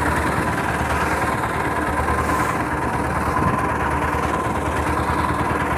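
Boat engine running steadily underway, an even drone with a thin steady whine on top.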